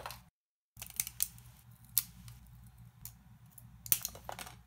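Flush cutters snipping 3D-printed plastic support material off printed parts: separate sharp snips about once a second, with a quick cluster of snips near the end.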